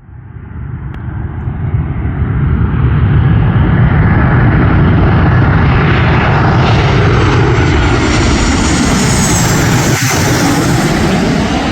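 Airplane fly-by: engine noise swells from nothing over the first few seconds into a loud, steady rush. A high whine grows stronger in the second half.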